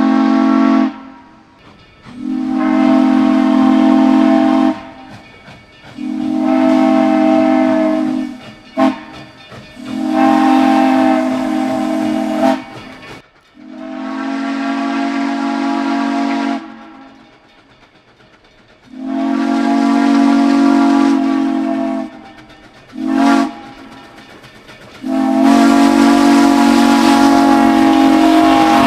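Steam locomotive's chime whistle blowing the grade-crossing signal, long, long, short, long, twice over, with a hiss of steam.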